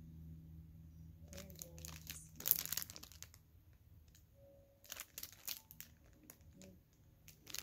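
Clear plastic packaging crinkling in irregular bursts as it is handled and turned over, loudest about two and a half seconds in, with smaller crackles near the end.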